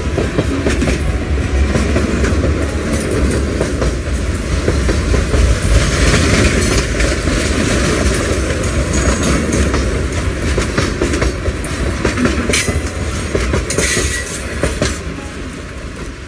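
Freight train cars rolling past close by: a loud low rumble with the clickety-clack of wheels over the rail joints and metallic rattling of the cars. It fades near the end as the last car moves away.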